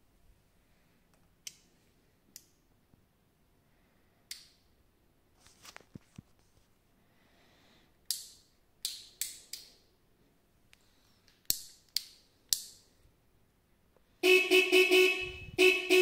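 A few sharp clicks of a handlebar switch, then the dirtbike's electric horn from the DIY road-legal wiring kit sounds in two long blasts near the end, being tested.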